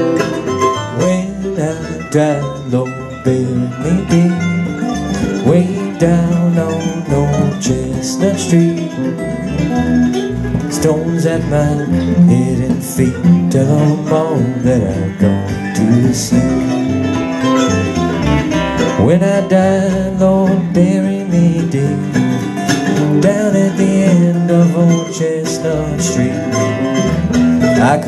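Live acoustic string band (acoustic guitars, mandolin and upright bass) playing an instrumental break of a folk tune, with plucked guitar melody over a walking bass line.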